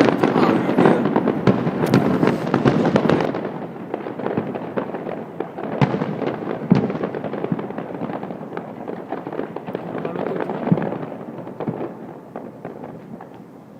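Fireworks display: a dense run of bangs and crackling, then fewer, scattered bangs and crackles that die away toward the end.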